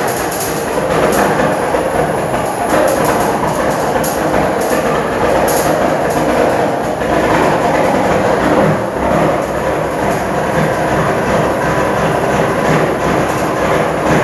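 Cummins diesel engine of a Peterbilt 351 idling just after a cold start, running with an uneven, loping rhythm.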